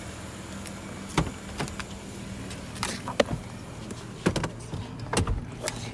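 Footsteps on a concrete path, then a person climbing into a car: a string of knocks and clunks from the door and seat over a steady low hum.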